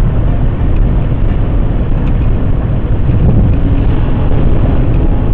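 Steady road and wind noise inside a moving car, strongest in the low rumble.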